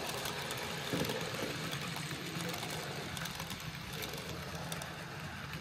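N gauge model train running past on the layout track: a steady whir of the locomotive's small motor with the rumble of wheels on rail.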